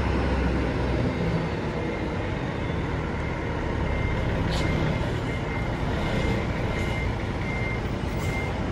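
Intercity coach bus engine running as the bus manoeuvres, with its reversing alarm beeping in an even repeating pattern from about four seconds in.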